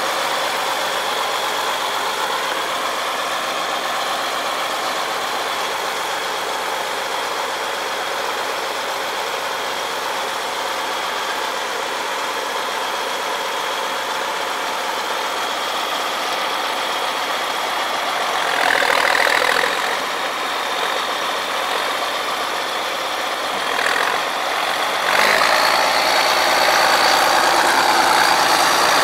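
The Case IH 3594's 8.3-litre six-cylinder turbo diesel running steadily, with a constant high whine over the engine note. There is a brief louder spell partway through, and near the end the engine speeds up and gets louder, its whine rising in pitch.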